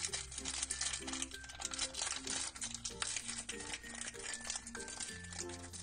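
Thin plastic packaging crinkling as hands work open a small clear bag holding a toy figure. Throughout, there is background music with a bass line and a simple repeating melody.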